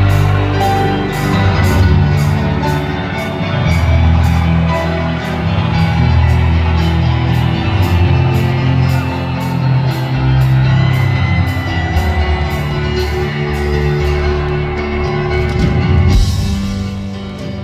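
Live rock band playing a slow opening with sustained low chords over a steady beat.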